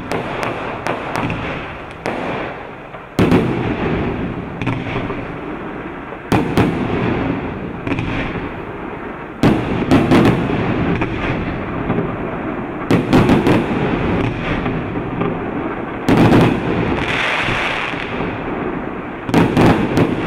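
Several consumer F3 firework cakes firing at the same time: a dense, continuous rattle of launches, bursting breaks and crackle, with a louder volley of reports starting suddenly about every three seconds.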